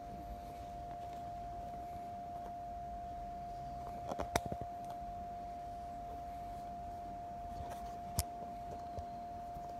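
A steady high-pitched hum with light clicks and knocks over it: a few together about four seconds in, and one sharp click near eight seconds.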